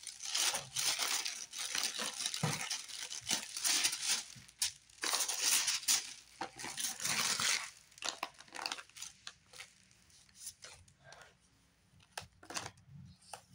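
Tissue paper being pulled open and folded back, rustling and crinkling loudly for about eight seconds, possibly tearing at its seal. After that come lighter, scattered crinkles of plastic packaging and sticker sheets being handled.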